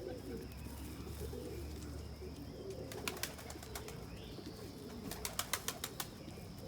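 Domestic pigeons cooing, repeated low rising-and-falling coos overlapping one another. A few sharp clicks come about three seconds in, and a quick run of clicks follows a couple of seconds later.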